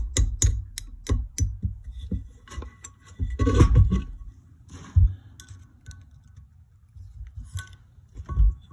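Metal hand tools working on a Yamaha YZ250F's aluminium cylinder head. A quick run of evenly spaced metallic clicks, about three or four a second, stops about a second and a half in. A louder scraping clatter of metal parts with a brief ring follows about three and a half seconds in, then single knocks near five seconds and near the end.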